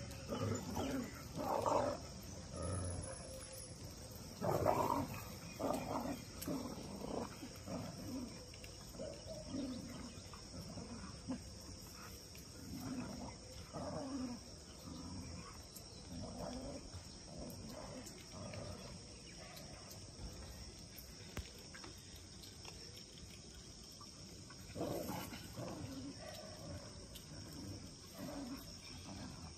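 Lions growling in repeated rough bursts while attacking large prey, loudest about five seconds in and again near the end. A faint steady insect buzz runs underneath.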